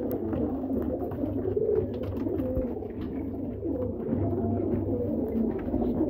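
A group of domestic high-flyer pigeons cooing together, many low coos overlapping continuously. There are a few faint clicks among the coos.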